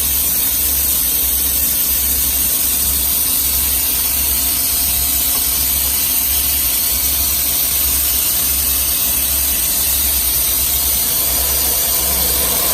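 CNC milling machine running a high-feed cut in S45C carbon steel with a 16 mm, two-insert high-feed cutter. It makes a steady hiss over a low, wavering hum.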